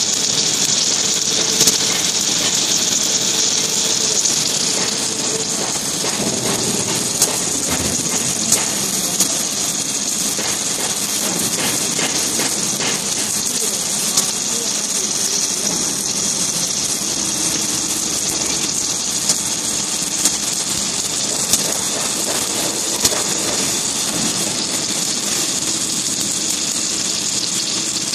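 Submerged-arc welding head on a column-and-boom welding manipulator running along a flux-covered seam: a steady loud hiss with a low machine hum and a few scattered sharp clicks.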